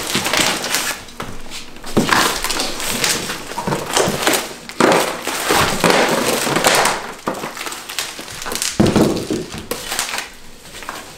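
Bubble wrap and plastic packaging crinkling and rustling in irregular bursts as bubble-wrapped metal frame tubes are lifted and shifted on cardboard.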